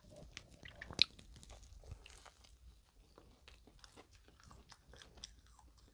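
Fried croquette bun being bitten into and chewed: faint crunching and chewing with many small clicks, and one sharper crunch about a second in.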